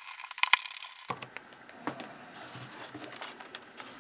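Sharp clicks of a screwdriver driving a base screw into the bottom plate of an Intel NUC mini PC. After about a second the clicks stop, leaving faint rustling and a few light knocks as the small metal-and-plastic case is handled.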